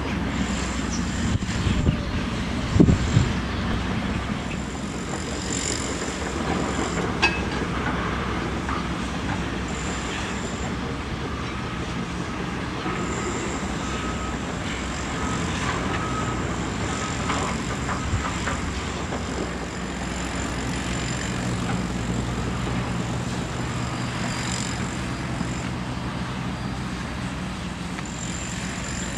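Diesel engines of a Caterpillar tracked excavator loading a tipper truck, running steadily under load. A few sharp knocks come about three seconds in.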